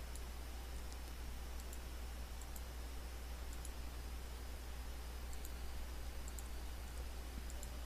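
Faint computer mouse clicks, a few scattered irregularly, over a steady low hum.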